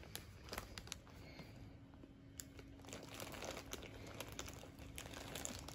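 Plastic bags crinkling and rustling, with light clicks and taps, as a zip-lock bag, a can and a bag of dry kibble are handled and packed into a backpack.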